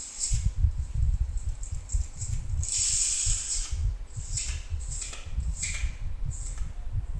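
Putty knife pressing and scraping crack-filler paste into a wall crack: a run of short hissy scrapes, with one longer scrape about three seconds in, over an irregular low rumble.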